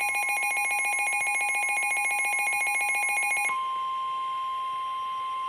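Midland NOAA weather radios alerting to a severe thunderstorm warning: a rapid pulsing electronic alarm beeps over the steady weather-radio warning tone. About three and a half seconds in the beeping stops and the steady tone continues alone.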